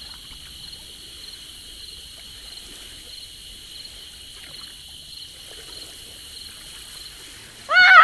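Steady, high insect chirring. Near the end a bird gives a loud run of honking calls in quick succession.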